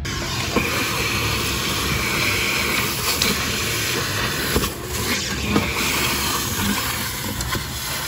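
Shop vacuum running steadily, its crevice nozzle sucking up metal drill shavings from the floorboards, with a few small clicks as chips rattle up the hose.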